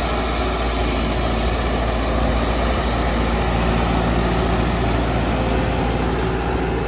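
Mahindra Novo 75 hp tractor's diesel engine running steadily while hitched to a 36-disc harrow.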